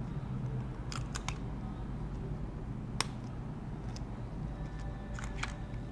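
A few small sharp clicks and ticks over a low steady hum: two about a second in, a louder single click about three seconds in, and a cluster near the end. These are tiny phone components and hand tools being handled and seated during reassembly.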